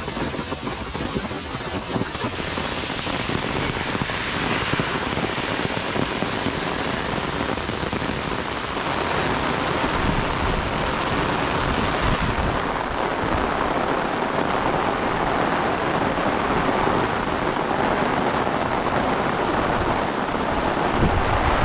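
Heavy rain falling steadily in a downpour, a dense even hiss of rain on grass, pavement and standing water, growing a little louder over the first several seconds.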